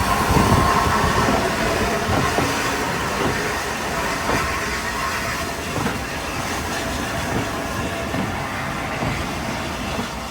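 Steam-hauled passenger train rolling past behind 60163 Tornado, its wheels clicking over the rail joints, the sound slowly dying away.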